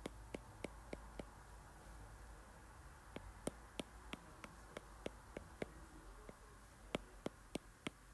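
Light taps on an iPad touchscreen as squares are tapped in one by one, about three a second, with a pause of about two seconds a second in.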